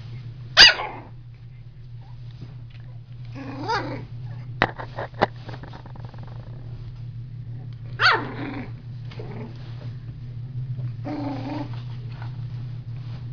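Young blue heeler × terrier-poodle puppies yipping and growling as they play, with a sharp yip about half a second in and another about eight seconds in, rougher growls between, and a few sharp clicks around the middle. A steady low hum runs underneath.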